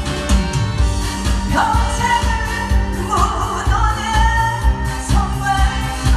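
A woman singing a Korean trot song into a microphone, her voice gliding between held notes over an accompaniment with a steady drum beat.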